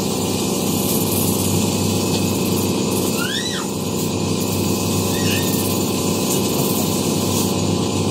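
Electric shoe-polishing machine running steadily, its spinning brush buffing wax polish on a leather shoe's toe cap, with a brief squeak about three and a half seconds in.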